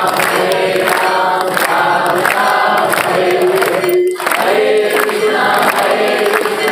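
A group of voices singing a devotional chant together, loud and continuous, with a brief break about four seconds in.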